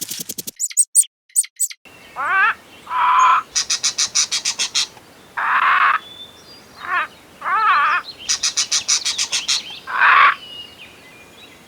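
Birds calling: a series of short, wavering calls broken by two rapid rattling trills.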